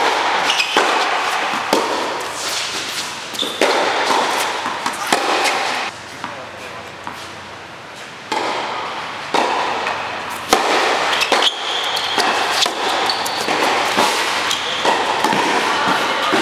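Tennis balls struck by rackets and bouncing on a hard court, sharp pops that echo and ring on in a large indoor hall, with a quieter pause between points.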